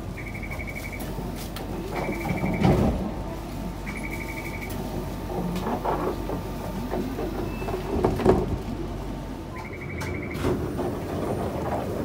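Door buzzer of a Toden Arakawa Line 7700 series tram: four short bursts of rapid high beeps, each under a second, sounding while the single-leaf sliding door moves. Knocks and rumble from the door sliding come through between the bursts.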